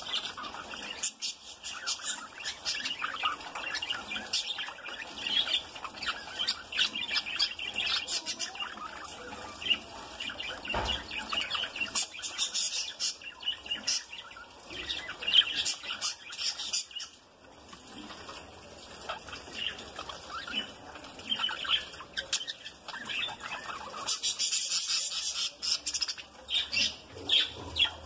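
Several budgerigars chattering: a steady stream of quick, high chirps and warbling calls, with brief wing flutters among them.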